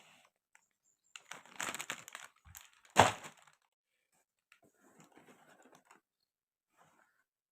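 Plastic toy packaging being handled and torn open: crinkling and tearing, then one sharp loud snap about three seconds in, followed by faint rustling.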